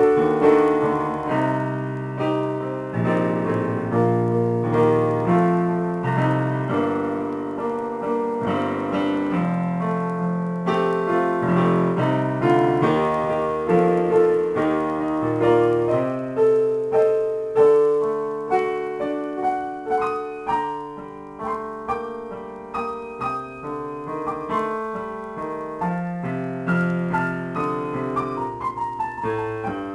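Yamaha digital keyboard with a piano sound, played as a solo improvisation: a continuous run of chords and melody notes, each struck and left to ring over sustained bass notes.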